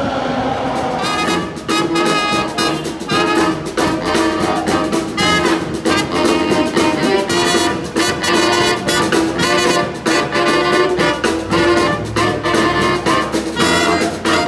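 A street brass band playing an upbeat tune: trumpets, trombone, saxophone and tuba over a steady drum beat. It comes in about a second in, as the rumble of a subway train ends.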